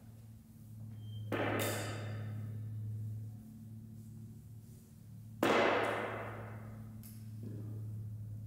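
Two heavy percussive strikes about four seconds apart, each ringing out and fading slowly over a couple of seconds, over a steady low hum.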